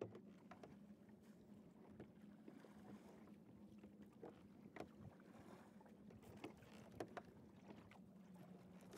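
Near silence: faint hiss with a low steady hum and scattered soft clicks.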